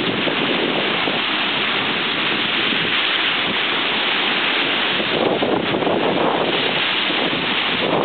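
Wind buffeting the microphone over small lake waves breaking and washing up a gravel beach, a steady rushing with no let-up.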